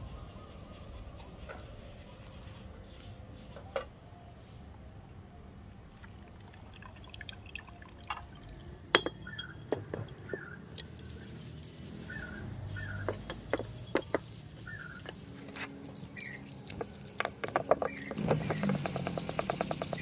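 Steel wire being worked off a wet double-bit axe head with pliers: scattered sharp metal clicks and clinks, the loudest about nine seconds in. Near the end, fast rasping strokes as the axe head is scrubbed by hand.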